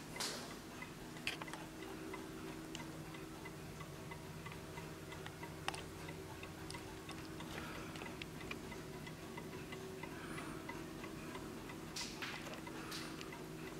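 Steady ticking of a 1920 German BWL Napoleon-hat mantel clock's movement while it runs, with a few louder short knocks heard over it.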